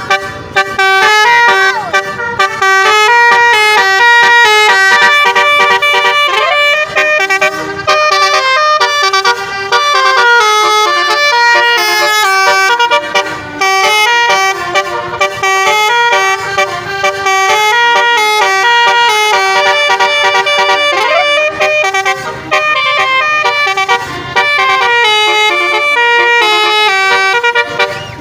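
Basuri multi-trumpet musical vehicle horn playing a quick melody, note after note, over a held lower tone.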